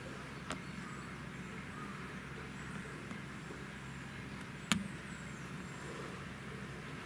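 Steady low room hum, with a short sharp click about half a second in and a louder sharp click nearly five seconds in.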